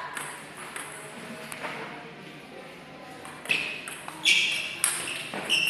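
Sports shoes squeaking on an indoor court floor: several short, high squeaks in the second half, after a few sharp hits, with the echo of a large hall.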